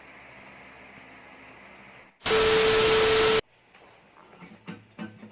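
Faint steady hiss, then about two seconds in a loud burst of static with a steady tone running through it, starting and stopping abruptly after about a second. A few soft knocks follow near the end.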